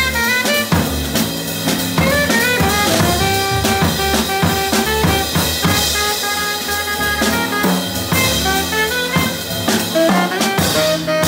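Live small-group swing jazz: a tenor saxophone plays a fast line of many short notes over double bass and a drum kit with snare, bass drum and cymbals.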